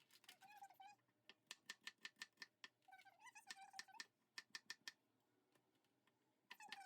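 Quick runs of sharp knife strokes on a cutting board, about five a second, with three short squeaky sounds mixed in.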